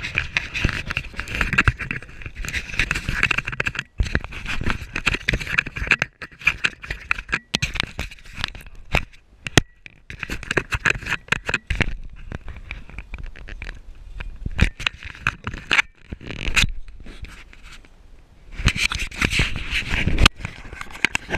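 Handling noise from a GoPro camera being moved about against clothing and a padded vest: irregular knocks, clicks and scraping rubs, with short lulls.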